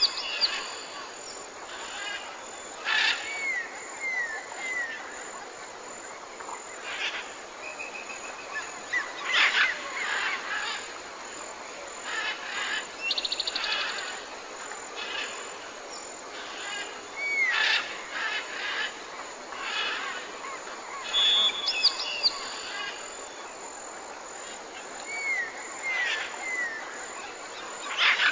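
Several birds chirping and calling off and on over a steady outdoor hiss, with short chirps and brief curved whistles every second or two.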